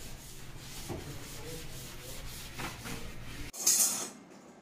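Steady scrubbing, a brush or cloth rubbed back and forth over a kitchen surface in repeated strokes. About three and a half seconds in it cuts off sharply and a brief bright hissing noise follows.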